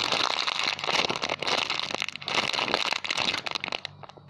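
Dense crinkling and crackling as a squishy toy is handled and squeezed, thinning to a few scattered clicks near the end.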